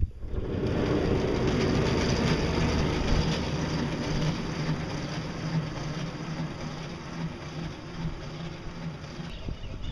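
Homemade pedal/electric boat under way: its drive whirs steadily over water rushing past the hulls. The sound starts suddenly, then fades over the last several seconds as the boat pulls away.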